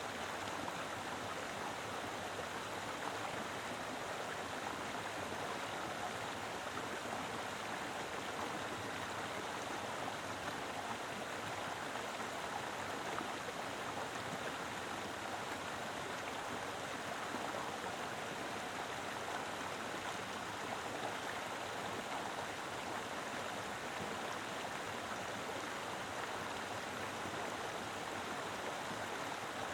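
Mountain river flowing steadily, a dense even rush of water over rocks with no breaks.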